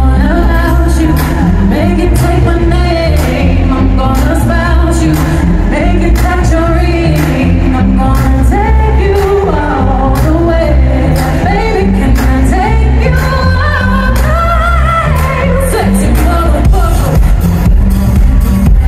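Live pop concert music at stadium volume: a sung melody over a heavy bass line and a steady beat, picked up from the crowd.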